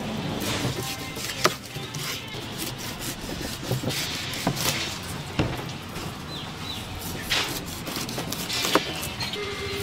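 Chef's knife cutting through a whole pineapple's tough, scaly skin, with crunchy scraping strokes and several sharp knocks as the blade strikes the plastic cutting board.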